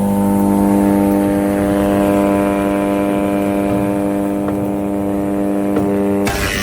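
Vecoplan 35/8/2 wood shredder running with a steady, loud hum from its electric-driven rotor. Near the end the sound turns abruptly rougher and noisier as wood begins to be ground.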